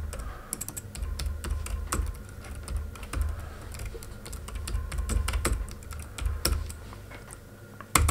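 Computer keyboard typing: a run of irregular key clicks, over a low rumble.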